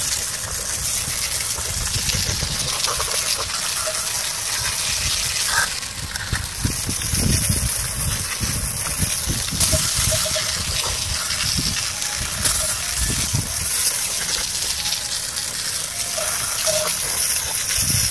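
A hard jet of water from a hose spray nozzle hits an engine intake manifold, rinsing off degreaser. It makes a steady, unbroken hiss and splatter against the metal that cuts off just after the end.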